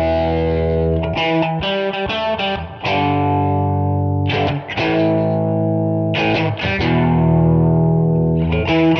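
Background music: distorted electric guitar playing long held chords, with quicker picked note changes between them.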